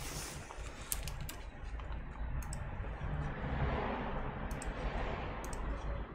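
Scattered clicks of laptop keys being pressed, a few at a time with pauses between, over a low steady hum and some rustling.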